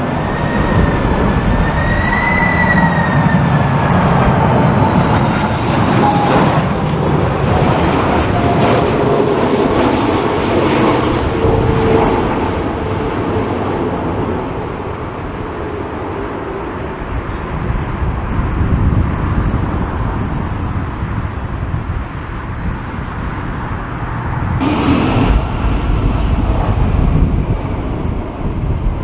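Boeing 747 jet engines of landing aircraft passing low on final approach and touching down: a continuous loud jet rumble with a whining fan tone that bends in pitch in the first few seconds.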